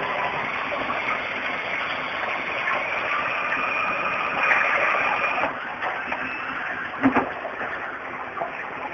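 Self-cleaning toilet seat running its cleaning cycle: a steady motorised whirring and rushing as the seat passes through its cleaning arm. The noise eases about five and a half seconds in, and a short knock comes about seven seconds in.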